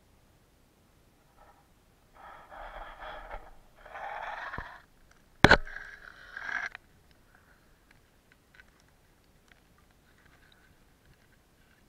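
Water swishing and splashing around a camera as it is pulled up out of the water, in two swishes and then a sharp knock about halfway through, followed by faint ticks.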